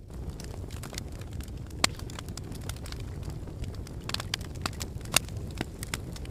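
Wood fire burning in a fireplace: a steady low rumble of flames with frequent sharp crackles, and two louder pops, about two seconds in and about five seconds in.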